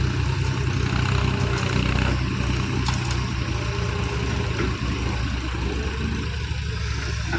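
Heavy diesel engine of earthmoving machinery running steadily at a constant level, with faint clatter over it.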